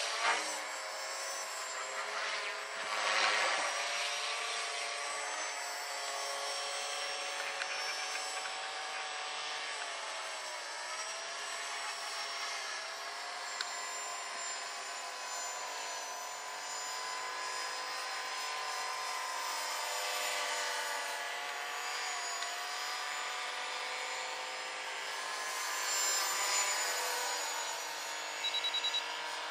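Electric 450-size RC helicopter flying overhead: a steady whine from its motor and rotors, the pitch drifting up and down as it manoeuvres. A short run of high beeps near the end.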